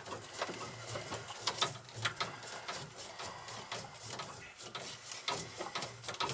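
Small tubing cutter worked around a copper water pipe: a run of irregular light metallic clicks and scrapes as the cutter is turned by hand.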